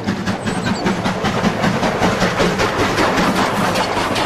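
Steam locomotive working past with its coaches, its exhaust chuffing in a quick, even rhythm.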